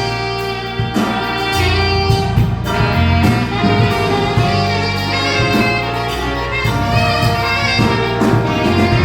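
Instrumental music: a held, pitched lead melody over a bass line and a light beat.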